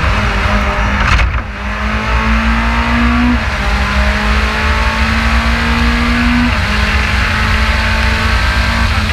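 Race car engine heard from onboard under hard acceleration, with steady wind and road rumble. There is a sharp crack about a second in, then the revs climb, drop at an upshift, climb again, and drop at a second shift near two-thirds of the way through.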